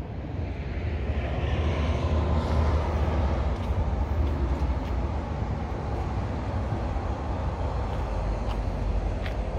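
Road traffic noise from a nearby highway, swelling about two seconds in as a vehicle goes by, then slowly easing off.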